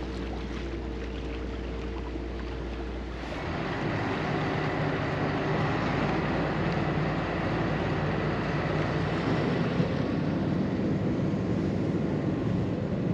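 Engine of the small pusher boat moving a raft ferry, running steadily, mixed with wind and water noise. About three seconds in the sound shifts and becomes louder and fuller.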